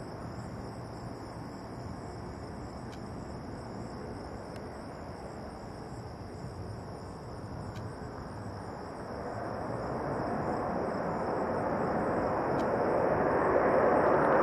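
Jet engine noise from an Airbus A340's four CFM56 turbofans: a distant steady rush that grows steadily louder through the second half as the airliner taxis toward the listener.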